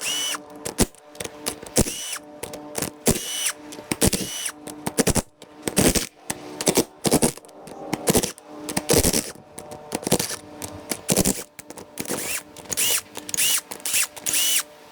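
Tools working on a limited-slip differential centre being taken apart: a run of irregular short mechanical bursts and sharp metal clicks, some with a brief ringing note.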